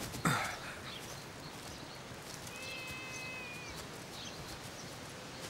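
Horse calling with a short cry that falls steeply in pitch just after the start, as the riders rein in and dismount. About halfway through, a thin high call lasts about a second.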